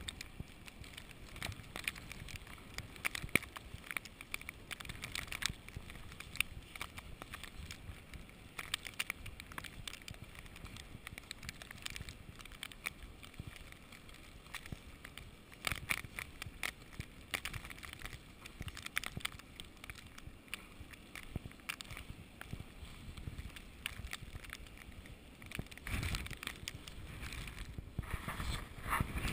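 Footsteps crunching in snow, irregular crackles, with wind buffeting the microphone in gusts, strongest near the end.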